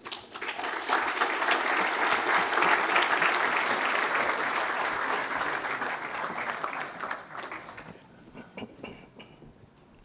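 Audience applauding: the clapping builds over the first two seconds or so, then tapers off, leaving a few scattered last claps about eight to nine seconds in.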